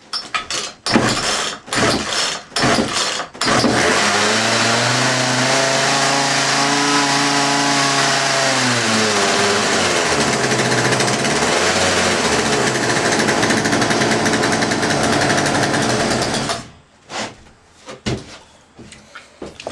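Craftsman two-stroke chainsaw being pull-started on choke: a few short bursts, then it catches about three and a half seconds in and runs loud for about thirteen seconds, its pitch rising and then falling, before cutting out abruptly. A few clicks follow.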